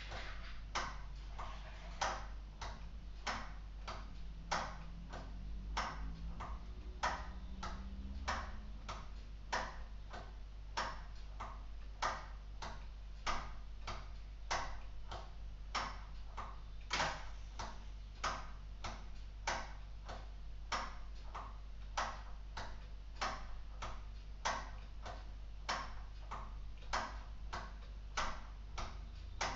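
Escapement of a LEGO Technic mechanical clock ticking: a steady train of sharp plastic clicks, about three every two seconds, some louder than others.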